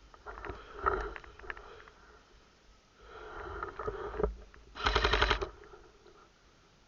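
An airsoft gun fires a short full-auto burst about five seconds in, a fast, even run of sharp clicks lasting under a second. Before it come scattered clicks and bursts of noise.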